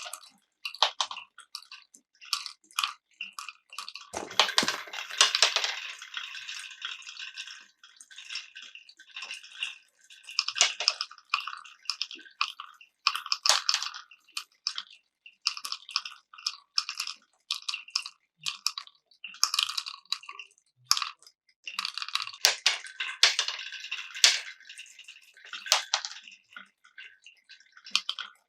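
Glass marbles rolling and clacking through a Cuboro wooden block marble run: a running string of quick clicks and rattles. Two denser stretches of rattling come, one about four seconds in and another about twenty-two seconds in.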